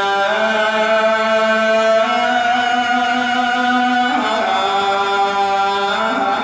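A man's voice chanting an Islamic chant in long held notes, each held about two seconds before stepping to a new pitch.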